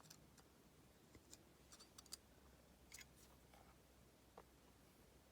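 Faint, scattered small clicks and ticks of lock pins and parts being handled as a challenge padlock is taken apart pin by pin.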